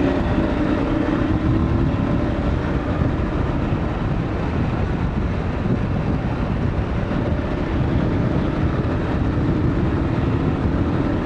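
Dual-sport motorcycle under way: its engine runs steadily beneath a heavy rush of wind on the rider's microphone.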